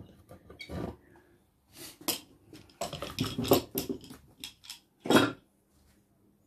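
A hand brush swept in short scraping strokes over a wire-brushed wooden board, clearing off dust and loose fibres. The strokes come in an irregular run, bunched in the middle, with one louder stroke near the end.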